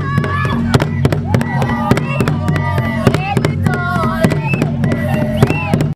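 Group of women singing a traditional South African dance song over many sharp, irregular percussive hits.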